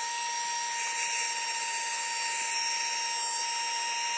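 Handheld embossing heat gun running steadily: an even fan hiss with a thin, constant whine, blowing on wet paint to dry it.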